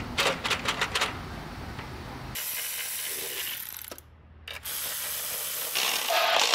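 Cordless electric ratchet whirring in runs, with a short pause between them, as it drives down the rocker (valve) cover bolts on a BMW N57 diesel engine. Clicks and handling noise come first.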